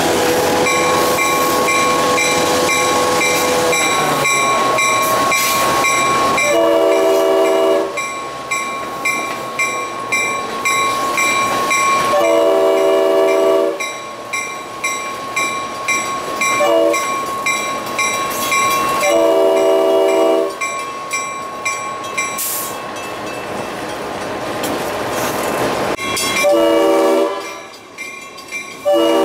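Diesel locomotive horn sounding the grade-crossing signal, long, long, short, long, then further blasts near the end as the crossing is reached, over a bell ringing steadily and the rumble of the moving train on the rails.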